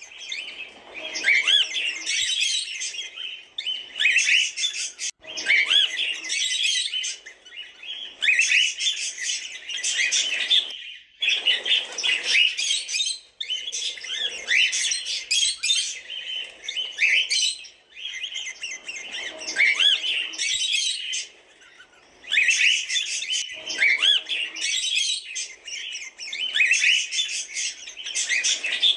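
Cockatiels chirping in busy bursts of a second or two, with short pauses between, mixing quick chirps with short rising whistles.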